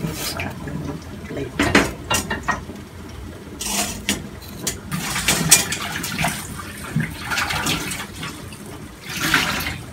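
Kitchen tongs clattering against a stainless steel steamer basket and pot as boiled broccoli is lifted out, with a short knock every second or so, and water splashing and dripping back into the pot.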